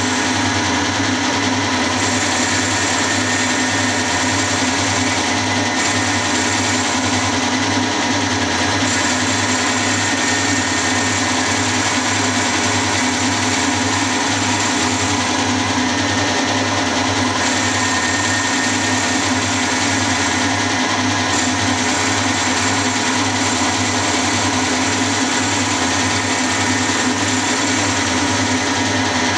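Milling machine running with an end mill cutting a 3/8 inch bore into a small metal tailstock casting: a steady machine drone with the cutter's chatter and a regular low pulsing.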